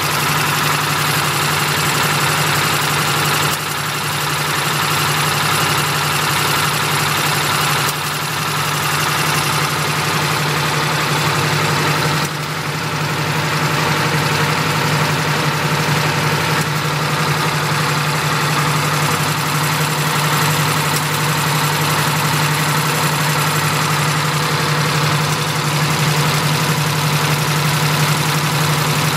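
Pneumatic-type napkin tissue paper folding machine running, giving a steady mechanical noise over a low hum.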